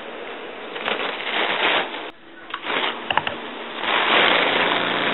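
Homemade K'nex lawn mower's small electric motor running, with a rough rushing noise that comes and goes in bursts and a few sharp clicks about three seconds in. The noise is loudest and steadiest in the last second or so.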